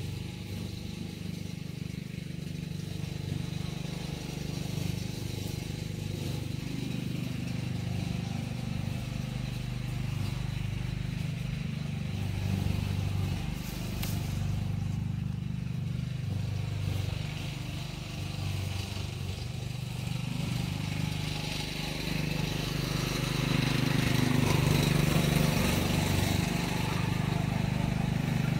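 A steady low engine-like drone, growing louder with more hiss in the last few seconds.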